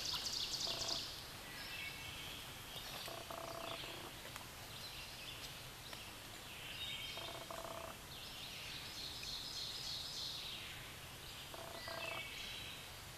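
Woodland birds singing, one repeating a short phrase every few seconds, over the faint steady wash of a shallow stream.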